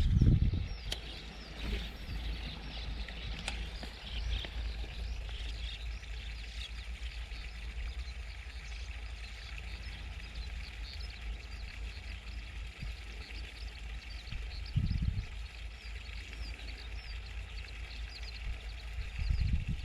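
Outdoor ambience: a dense chorus of short high chirps over a steady low rumble on the microphone, with a dull low thump about fifteen seconds in and another near the end.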